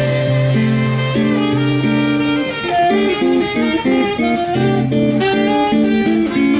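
Small jazz band playing: an electric guitar carries the lead, held notes giving way to a quick run of single notes about halfway through, over a drum kit with cymbal strokes.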